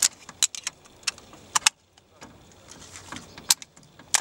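AK-74 rifle parts handled in a stripping-and-assembly drill: irregular sharp metallic clicks and clacks, with a brief hush a little under two seconds in.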